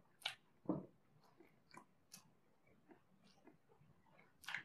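Close-miked chewing of a mouthful of hamburger: soft wet mouth clicks and smacks, with a few sharp crackles scattered through.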